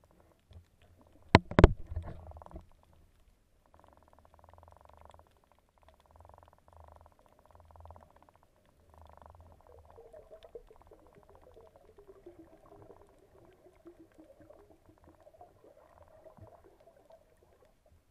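Underwater sound picked up by a submerged camera: two sharp knocks about a second and a half in, then faint rumbling. Over the second half a faint hum wavers, dipping in pitch and rising again.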